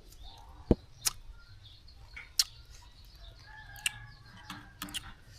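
Chickens clucking in the background, with four or five sharp clicks standing out over them.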